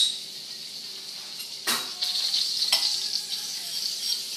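Chopped garlic sizzling in olive oil in a very hot stainless steel frying pan. There is a sharp clink at the start and two lighter knocks, after which the sizzling grows louder.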